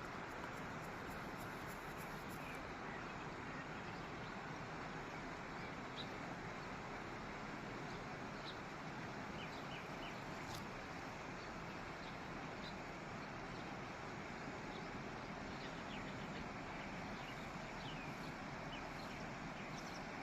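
Water flowing down with a steady, even rush, and short high chirps scattered through it.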